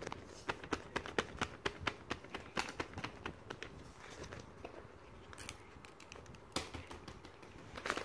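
Irregular clicking and crinkling from toys being handled. The clicks come thick and fast for the first few seconds, thin out in the middle, and pick up again near the end.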